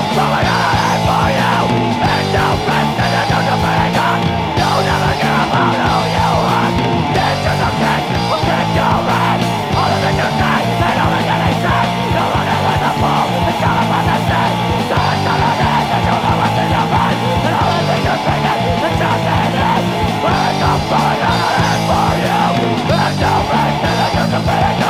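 Hardcore punk song from a 2000 split 7-inch vinyl record: loud, distorted electric guitar, bass and drums playing without a break.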